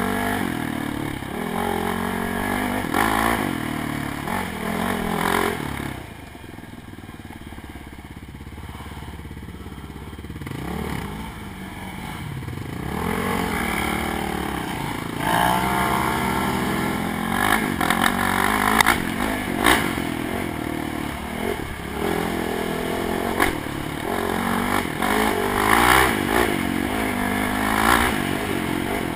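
ATV engine revving up and down as the quad is ridden hard on a rough dirt trail. It eases off for several seconds about a fifth of the way in, then revs back up, with repeated clatter and knocks from the machine bouncing over the bumps.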